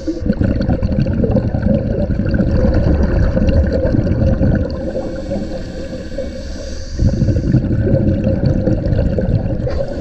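Underwater sound picked up through a GoPro housing: a scuba diver's regulator and exhaled bubbles gurgling in irregular surges, the loudest about seven seconds in, over a steady hum.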